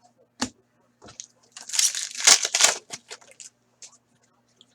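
Foil card pack and trading cards being handled: a sharp click, then about a second and a half of crinkling and crackling, followed by a few small ticks.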